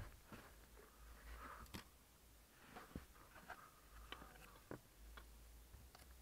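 Faint rustling with a few sharp little clicks as hands press a cable and adhesive tape against a metal bracket.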